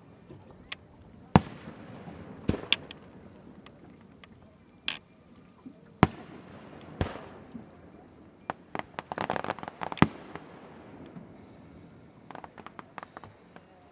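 Aerial fireworks bursting: single sharp booms every second or two, each trailing off, with two quick runs of rapid crackling, one building to a loud boom about ten seconds in and another near the end.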